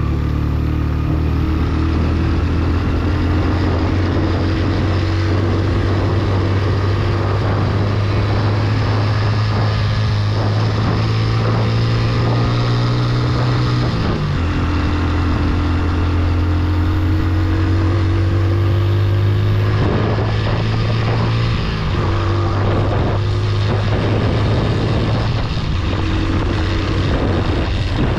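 Motorcycle engine pulling under load on an off-road climb, its pitch rising slowly in gear, then dropping at a gear change about halfway through and shifting again a few seconds later.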